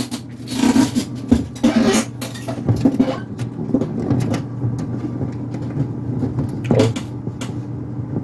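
Knocks and rubbing from handling an aluminium M.2 NVMe SSD enclosure and its USB-C cable, clustered in the first couple of seconds with one louder knock near the end. A steady low hum runs underneath.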